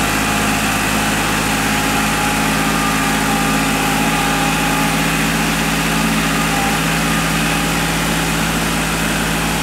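Kubota compact tractor's diesel engine running steadily at an even, low speed as the tractor creeps forward with its front loader.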